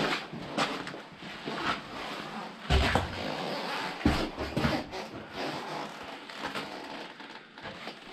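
Irregular footsteps and scraping on rubble inside a concrete bunker, with two heavier thuds about three and four seconds in.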